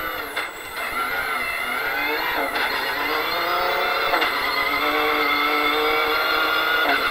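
Toyota Hilux rally-raid car's engine heard from inside the cabin, accelerating hard with its pitch climbing. A few short breaks as it shifts up through the gears.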